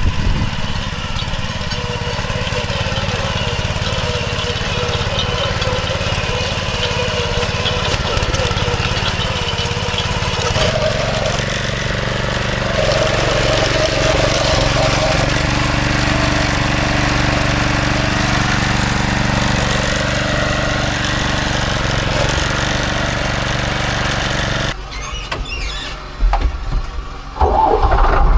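Farm machinery engine running steadily under load, with a change in its pitch about eleven seconds in. The sound cuts off abruptly near the end, and a deeper engine sound comes in.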